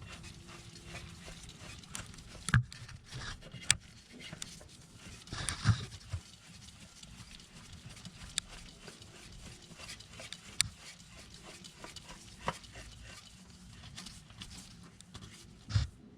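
Scattered light clicks, scrapes and rustles of hands spinning a new oil filter onto the engine from underneath the vehicle, with a few short louder noises, one about two and a half seconds in and one about five and a half seconds in.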